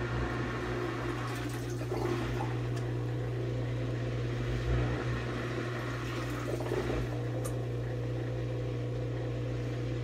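KUPPET twin-tub washing machine's built-in drain pump running with a steady low hum as it pumps rinse water out of the wash tub.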